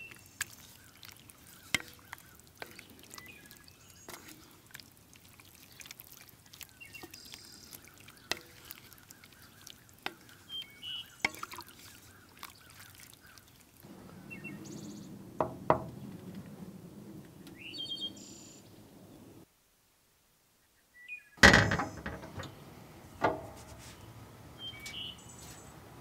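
Scattered light clicks and knocks with a few short bird chirps. The sound drops out entirely for about two seconds near the end, then a loud clatter.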